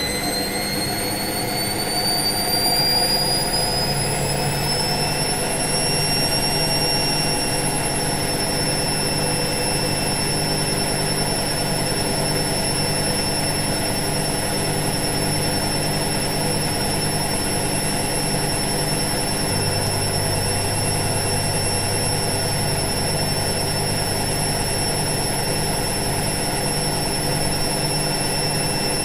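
Washing machine in its spin cycle: the drum speeds up with a rising whine for the first five or six seconds, then holds a steady high whine at full spin over a constant low hum.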